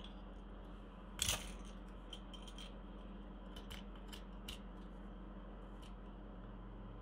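Deburring tool scraping leftover brim off the edges of a 3D-printed PLA part. One sharper scrape comes about a second in, followed by scattered small scrapes and clicks.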